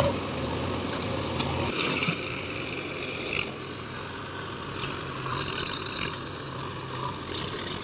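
Diesel engine of heavy earth-moving machinery running steadily, with a low drone that eases off about two seconds in and some brief higher mechanical sounds after.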